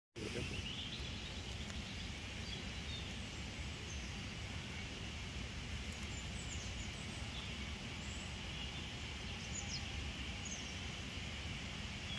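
Small birds giving short, high chirps now and then, some falling in pitch, over a steady low outdoor rumble.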